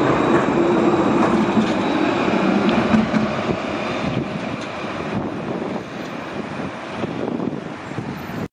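Electric tram running along its rails and moving away; its rumble and motor hum fade gradually. The sound cuts off abruptly at the very end.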